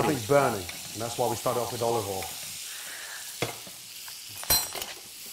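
Steaks frying in melted butter in a pan, sizzling steadily while a metal spoon bastes them. There are two sharp clinks of the spoon against the pan, about three and a half and four and a half seconds in; the second one rings briefly.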